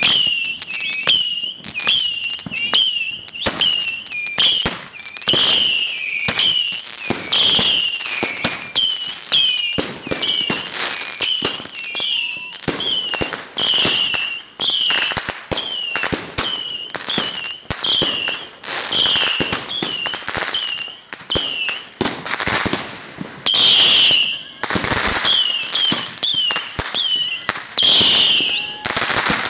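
Fireworks going off in a rapid string of shrill whistles, about two a second, with sharp pops and cracks between them.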